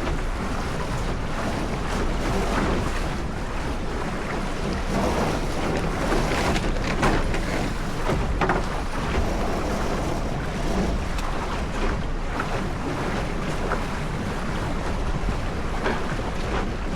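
Wind buffeting the microphone over water rushing along a sailing dinghy's hull as it sails, with brief splashes now and then.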